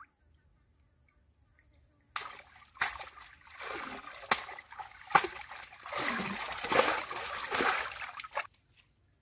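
River water splashing and sloshing as a woven basket of water snakes is dunked and swished through it. It starts with a sudden splash about two seconds in, goes on in surges with sharp splashes, and stops abruptly near the end.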